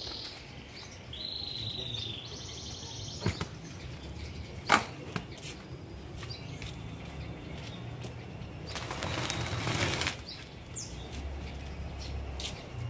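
Outdoor ambience with short high bird calls early on, a few sharp knocks or clicks, and about a second of rustling near nine seconds in, from work among plastic plant pots and foliage.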